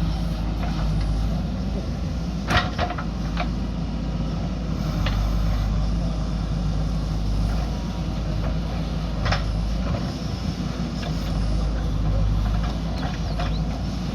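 JCB backhoe loader's diesel engine running steadily under work, with several sharp knocks over it, the loudest about two and a half seconds in.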